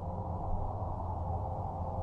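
Steady ambient sleep drone: a low hum with a soft hiss above it.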